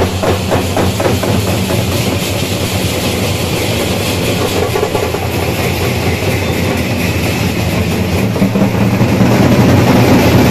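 An engine running steadily with a low hum, over a wash of noise. Drum beats fade out in the first second.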